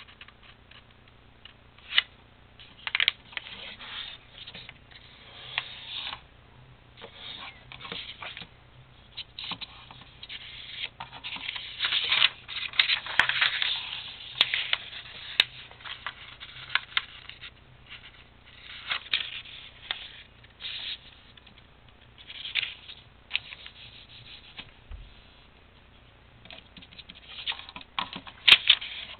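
A sheet of paper being handled and folded on a tabletop: irregular rustling and scraping as it is creased and smoothed flat, with a few sharp taps, busiest about halfway through.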